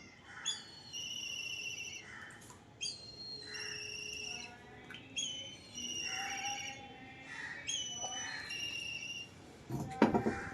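Small birds chirping in repeated short, high calls, some of them warbling. A brief louder sound comes near the end.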